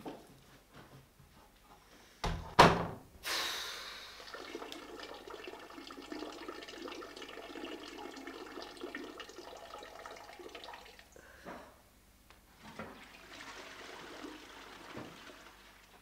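A toilet being flushed: a couple of sharp knocks, then water rushing for about eight seconds before dying away, with a quieter run of water near the end.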